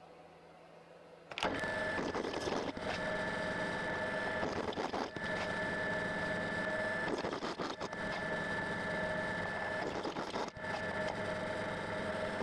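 Drill press running a step drill bit through the wall of a steel square tube: a steady cutting sound with a high ringing squeal. It starts suddenly about a second and a half in and breaks off briefly four times.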